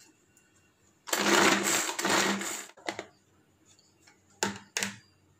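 Hand-operated plastic vegetable chopper mincing pieces of fresh ginger: about a second in, its blades whir and rattle fast for about a second and a half, then stop. A few sharp plastic clicks follow as the chopper lid is handled.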